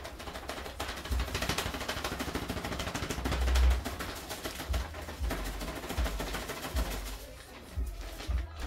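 Plastic bag crinkling and rustling as it is handled, a dense run of rapid crackles through the first half that thins out later, with several low thumps of the bag being knocked.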